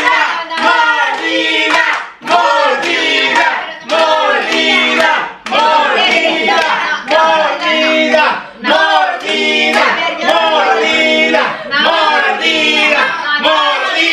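A group of family voices singing together with hand clapping, likely a birthday song.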